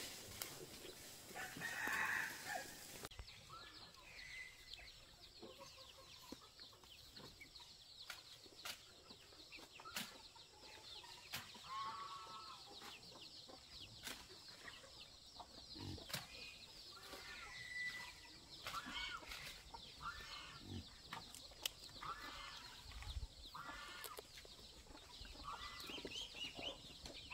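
Chickens clucking on and off, faint, with a few sharp clicks between the calls.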